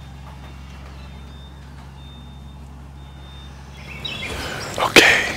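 Steady low hum of an idling vehicle engine, then scraping and rustling from about four seconds in and one sharp loud knock about five seconds in.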